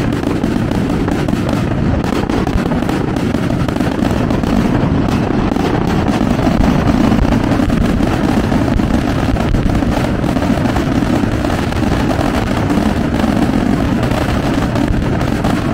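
Fireworks barrage: a loud, dense rapid crackle of many small bangs over a steady low rumble.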